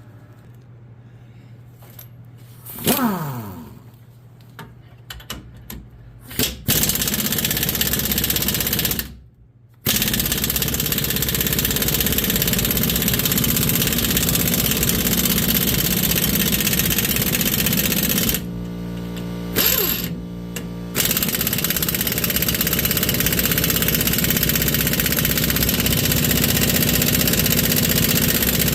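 Pneumatic impact wrench hammering continuously on the rusted rear leaf-spring U-bolt nuts, with the nuts not breaking loose. It is preceded by a few light clanks and runs in long bursts, pausing briefly about nine seconds in and again near twenty seconds.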